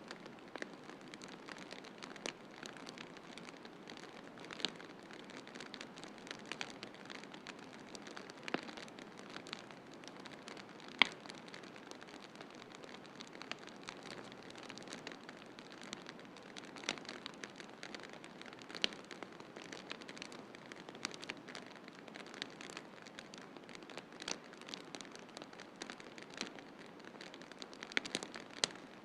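Wood fire crackling in a fireplace, with scattered sharp pops at irregular intervals, the loudest about eleven seconds in, over a steady hiss of snowstorm wind.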